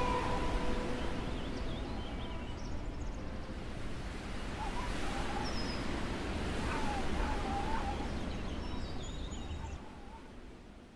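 Outdoor ambience: a steady rushing noise with a low rumble and a few scattered bird calls, fading out near the end. The last held notes of music die away in the first second.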